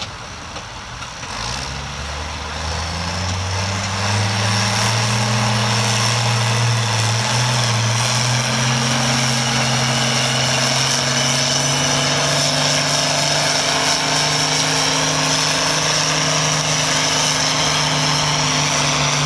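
Turbocharged International Harvester tractor's diesel engine revving up about two seconds in, then running hard and steady under full load as it drags a weight-transfer pulling sled, with a high steady whine over the engine note.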